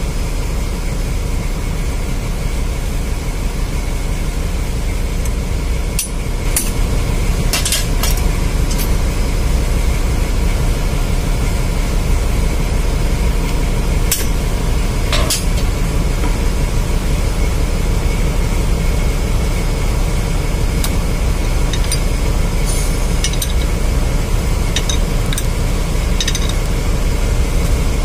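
Steady low drone of running ship's engine-room machinery, with a few sharp metallic clinks from a ring spanner on the bolts of an electric pump motor's end cover.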